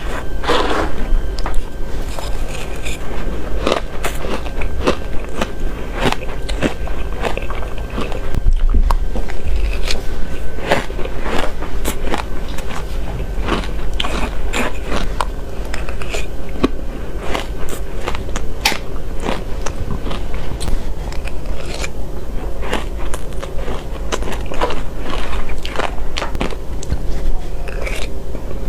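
A person biting and crunching hard ice close to the microphone, with many irregular crisp crunches one after another.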